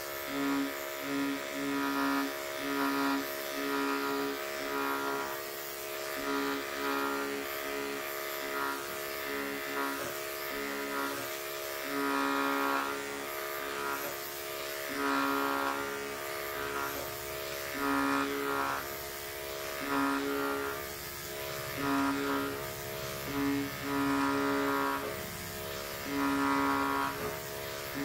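Electric clippers buzzing steadily while shaving short-pile faux fur, the tone swelling briefly again and again as the blades bite into the fur on each pass.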